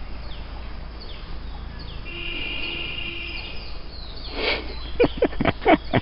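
Footsteps clanking on a suspension footbridge's metal-slat deck, a quick run of sharp strikes about five a second that begins a little past the middle. A few short falling chirps come before it.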